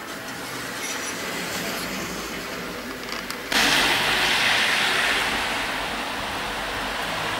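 Steady outdoor background noise, an even hiss with no distinct events. It jumps abruptly louder and brighter about three and a half seconds in, where the footage cuts from one recording to another.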